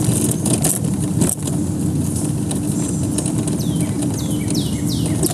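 Steady low rumble of a motor vehicle. Near the end, a bird repeats a short falling whistle several times a second.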